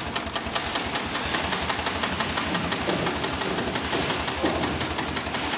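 Sailmaster 366-76-12 heavy-duty industrial zigzag sewing machine stitching sailcloth at speed: a fast, even clatter of needle strokes.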